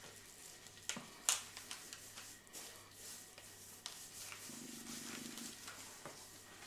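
Hands rubbing coarse salt into whole carp on a metal tray: faint scraping and rustling of salt grains against wet fish skin, with scattered light clicks and taps, the loudest a little over a second in. A brief low hum sounds about halfway through.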